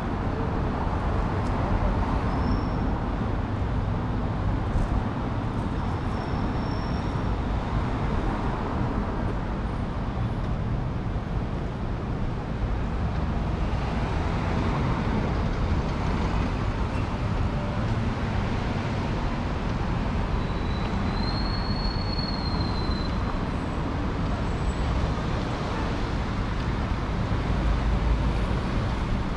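Steady city street ambience: road traffic running along the street, heavy in the low end, with a brief high-pitched tone about two-thirds of the way through.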